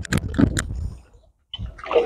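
Shallow pond water splashing and sloshing in several short, choppy strokes during the first second, then a sudden brief drop to near silence.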